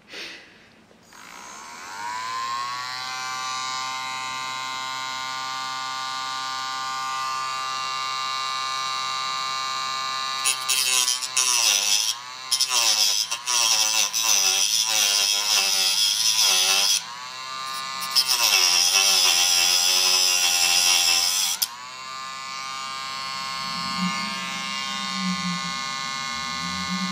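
Dremel rotary tool with a diamond cutting disc spinning up to a steady high whine, then cutting into a plastic motherboard header shroud. In two spells of several seconds the whine turns louder and harsher and its pitch wavers and dips as the disc bites into the plastic, easing back to the free-running whine between.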